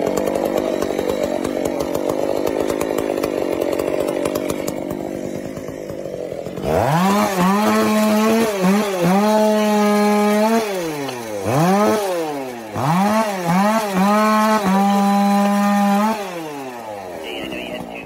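Chainsaw engine running rough at first. About seven seconds in it revs to a high steady pitch, then falls and climbs back again several times before dropping away near the end.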